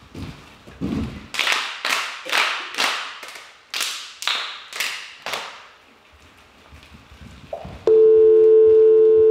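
A run of about ten sharp, echoing percussive hits, roughly two a second. About eight seconds in, a loud, steady telephone dial tone starts.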